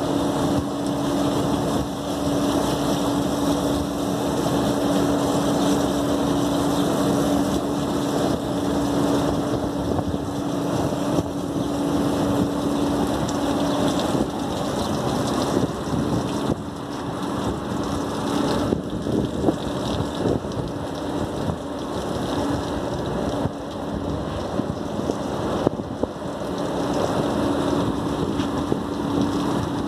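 Water jet from a hose hissing against the finned condenser coils of an SKM air-cooled chiller, over a steady mechanical hum that fades about halfway through and returns near the end.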